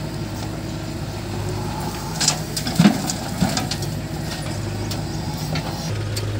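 JCB 3DX backhoe loader's diesel engine running steadily as its backhoe bucket dumps soil into a steel tractor trailer, with a few clattering knocks and thuds between about two and three and a half seconds in.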